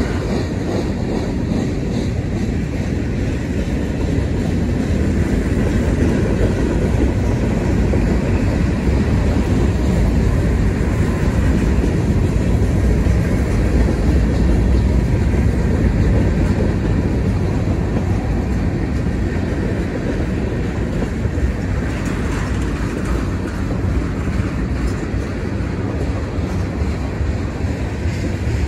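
Mixed freight train's covered hoppers and tank cars rolling past on the rails, a steady rumble of wheels and cars with no locomotive in the sound.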